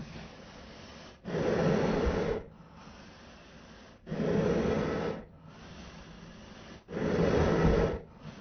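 Zombie breathing and growling sound effect: slow, ragged, raspy breaths, with three louder growling breaths of about a second each, roughly three seconds apart, and quieter breaths drawn in between.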